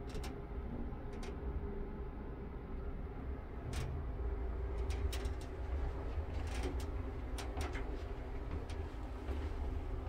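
Mitsubishi Grandy passenger elevator car travelling down: a steady low rumble of the moving car, with scattered sharp clicks and ticks, most of them in the middle of the run.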